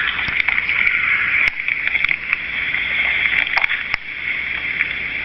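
Steady rushing water noise from a waterfall, with a few faint clicks and taps scattered through it.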